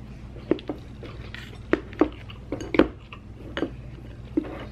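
Chopsticks tapping and clicking against a bowl and a plastic take-out container as noodles are picked up: about eight short, sharp clacks at irregular intervals.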